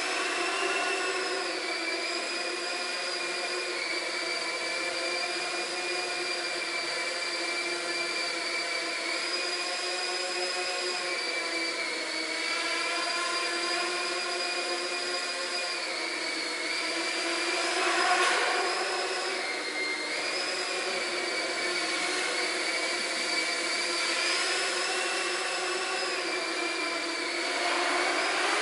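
Small quadcopter drone flying, its motors and propellers giving a steady high whine that wavers a little in pitch with the throttle. Two brief louder surges come about two-thirds of the way through and near the end.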